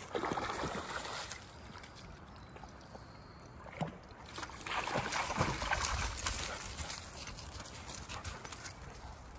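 Splashing and sloshing in shallow water, in two bouts: one right at the start and a louder, longer one about halfway through.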